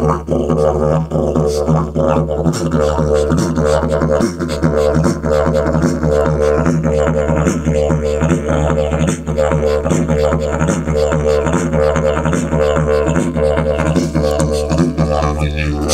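Didgeridoo playing solo: an unbroken low drone with a rhythmic, pulsing pattern, its beats falling about once a second.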